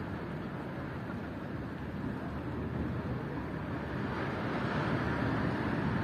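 Steady outdoor background noise with no distinct events, growing slightly louder about four seconds in.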